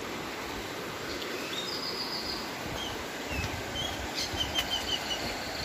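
Steady rush of a small river in flood after heavy rain, its fast muddy current running high. Birds chirp above it, with a quick run of about five chirps near the end.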